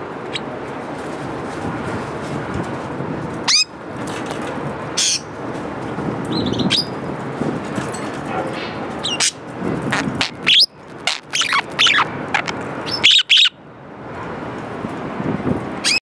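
Pet budgerigars chirping: short, sharp, high calls that come singly at first, then in quicker clusters in the second half. A steady background noise runs beneath them.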